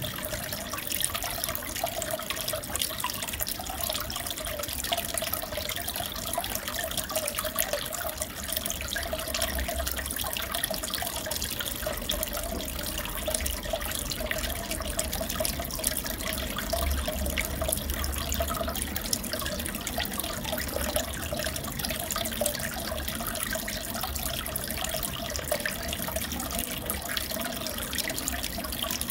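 Aquarium water running and trickling steadily, full of small splashes and crackles, over a low hum.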